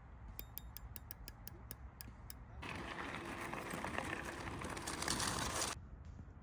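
Bicycle rear freewheel ratcheting: a run of separate clicks that slow down over about two seconds, then a dense ratchet buzz for about three seconds as the wheel spins fast, cutting off suddenly.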